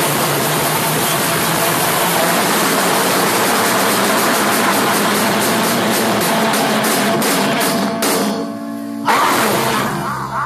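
A live punk rock band, with electric guitars and a drum kit, playing loud and distorted. Near the end the playing breaks up into separate hits, then lands one last loud crash that rings out, ending the song.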